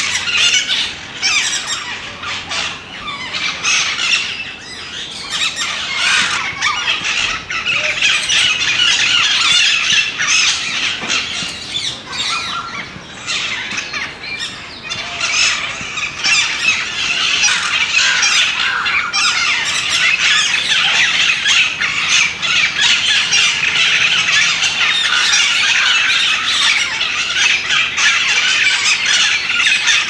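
Parrots squawking continuously, many harsh calls overlapping into a dense chorus that grows fuller about halfway through.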